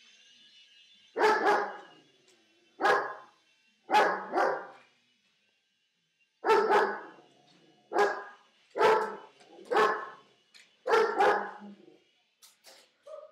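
German Shepherd barking, about a dozen loud barks coming singly and in quick pairs, with pauses of a second or two between them.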